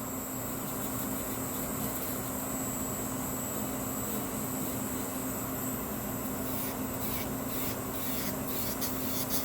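Nail file rubbing across a gel nail as it is shaped at the sides and tip, with distinct scraping strokes from about two-thirds of the way in.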